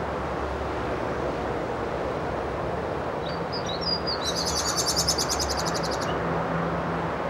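A songbird gives a few quick high chirps, then a fast high trill of about ten notes a second lasting under two seconds. Under it runs steady background noise, with a low hum coming in partway through.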